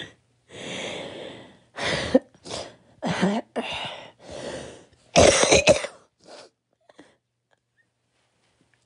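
A person coughing: a run of about eight coughs over some six seconds, the loudest about five seconds in.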